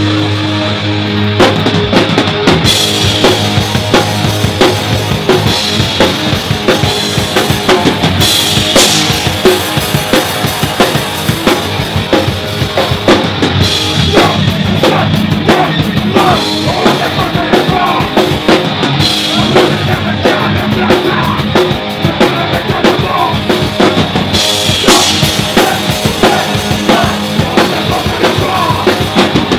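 Hardcore punk band playing live and loud: a held chord rings for about the first second and a half, then the drums come in and the full band plays on with guitars, kick and snare drum, and repeated crashes.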